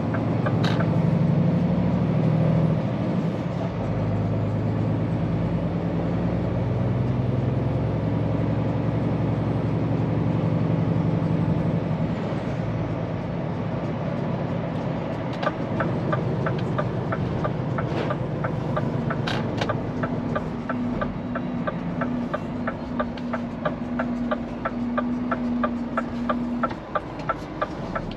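Scania P410 truck's diesel engine running steadily under way, heard from the cab. About halfway through, a turn-signal indicator starts ticking at about two ticks a second.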